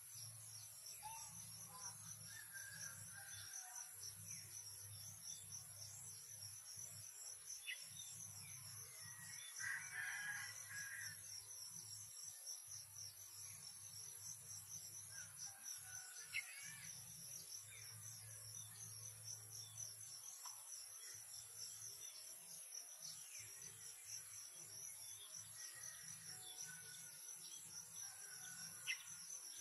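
An insect chorus: a steady, high, fast-pulsing trill, with scattered faint bird chirps.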